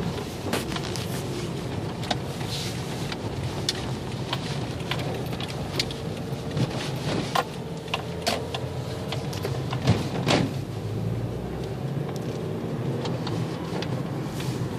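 Car engine and tyre noise heard from inside the cabin while driving, a steady low rumble with scattered short clicks and knocks, the loudest about ten seconds in.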